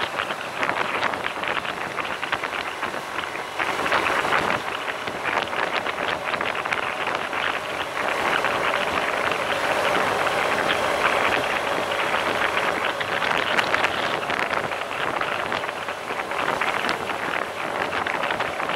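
Wind rushing and buffeting over the microphone of a camera mounted on a moving motorcycle, swelling and easing a little with speed but never letting up.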